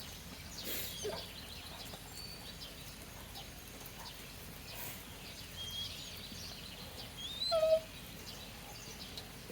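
Faint outdoor background with scattered small bird chirps. About three quarters of the way through comes a single short, high whine from a dog.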